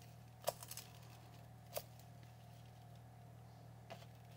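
A few light clicks and taps of garlic cloves being broken from a head on a plate, the loudest about half a second in, over a faint steady hum.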